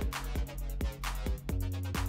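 Background music with an electronic beat: a steady bass line and regular drum hits.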